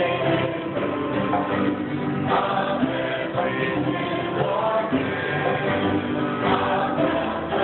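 A congregation and worship leader singing a hymn together, with acoustic guitar and piano accompaniment.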